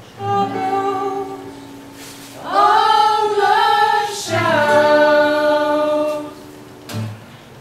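A few voices singing a slow blues line together: a short, quieter phrase, then a louder, long held phrase that slides up into its first note.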